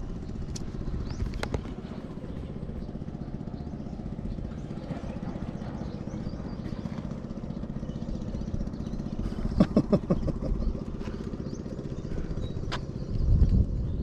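Motorcycle engine idling steadily, with louder vehicle noise passing about ten seconds in and a low rumble near the end.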